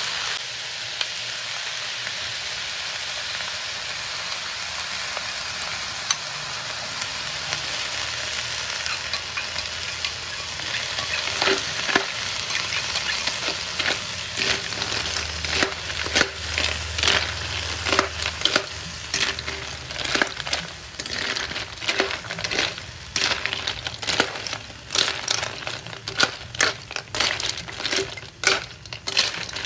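Rice field snails in their shells sizzling in a hot aluminium wok. From about eleven seconds in, a metal spatula stirs them, and the shells clatter and scrape against each other and the pan in many quick clicks over the frying hiss.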